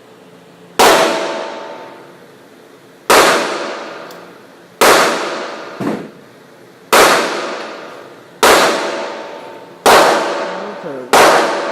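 Gunfire at an indoor shooting range: seven single shots at an uneven pace, one to two seconds apart, each ringing out in a long echo off the range walls. A fainter shot sounds between the third and fourth.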